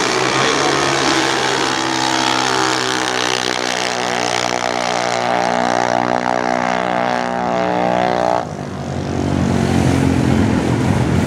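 Junior dragster's single-cylinder engine at full throttle through a drag-strip pass, holding a nearly steady pitch as the car accelerates away, then cutting off abruptly about eight and a half seconds in as the run ends.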